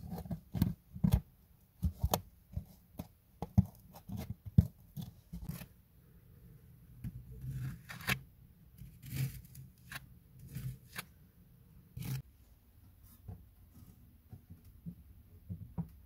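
Hands working on stove materials: a run of sharp clicks and knocks in the first half, then softer scraping and rubbing sounds with a few more knocks near the end.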